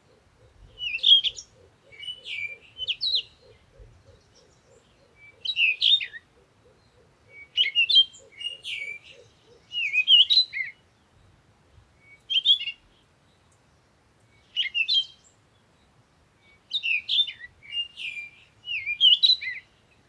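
A songbird singing short, rapid phrases of high chirps and trills, one phrase every second or two with brief pauses between.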